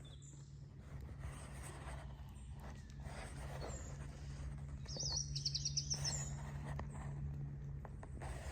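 Birds chirping, with one rapid trilled phrase about halfway through, over a steady low hum.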